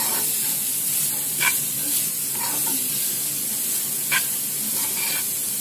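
Grated beetroot sizzling in ghee in a nonstick frying pan, stirred with a spatula that scrapes the pan a few times.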